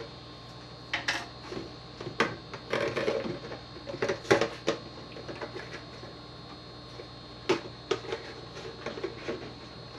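Plastic milk jug being handled and shifted inside a plastic tub: irregular clicks, knocks and rattles of plastic on plastic, bunched in two clusters with the loudest knock about four seconds in.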